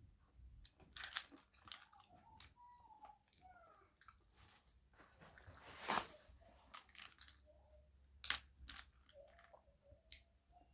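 A person chewing boiled crayfish close to the microphone: wet chewing with many small crackles of shell and meat being bitten. The loudest bite is about six seconds in, with a sharp crack just after eight seconds.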